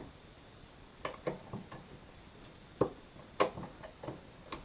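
Irregular light metallic clicks and knocks of hand tools working against a stuck, very tight part of a McCulloch 850 chainsaw's oil pump. The two loudest knocks come near the middle.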